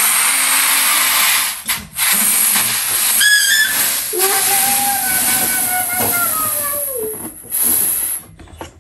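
Helium hissing out of a disposable balloon-kit tank's valve into a latex balloon as it inflates. It is a loud, steady hiss with a brief break about two seconds in, and it stops shortly before the end.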